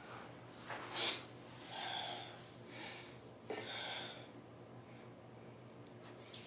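A person sniffing and snorting through a congested nose, about four short breaths in the first few seconds, the sharpest about a second in. She thinks she is coming down with a cold.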